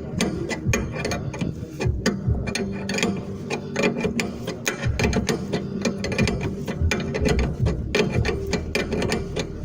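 Hand ratchet clicking in rapid, uneven runs of sharp metallic ticks, as a fastener is worked during brake repair on a car.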